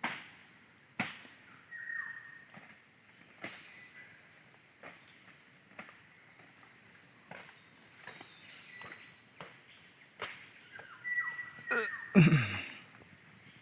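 Forest ambience with a steady high drone of insects, scattered knocks and snaps from branches being handled, and a couple of short whistled bird notes. Near the end comes a louder creaking, scraping burst that falls in pitch.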